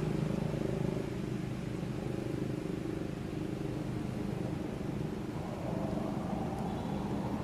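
A steady, low engine drone with a constant pitch throughout.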